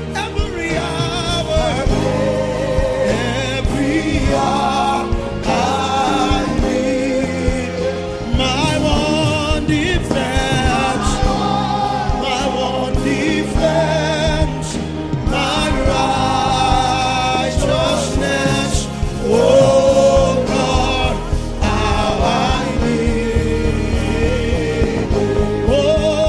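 Gospel music: singers with a choir over a steady instrumental backing.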